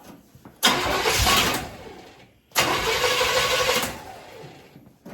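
The Chevelle's engine bursts into life twice, about two seconds apart. Each time it is suddenly loud, then dies away over a second or so.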